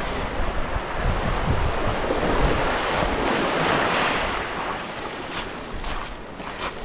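Ocean surf washing against the shore, swelling louder about halfway through, with wind buffeting the microphone.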